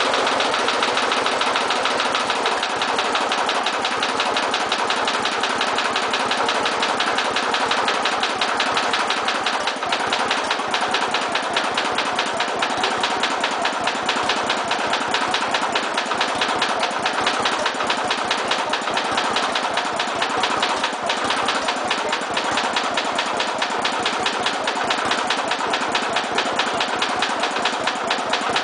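A 12 HP Briggs and Stratton mower engine running steadily with an even firing rhythm. It is running on a rich fuel mixture, its oxygen sensor reading close to 1 volt.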